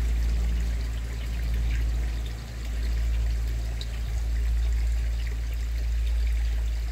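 Pond water pouring and trickling steadily, under a heavy low rumble of wind on the microphone that swells and eases in gusts.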